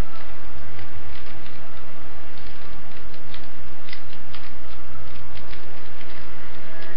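Plastic 3x3 Rubik's cube clicking and rattling irregularly as its faces are turned by hand, over a steady background hiss.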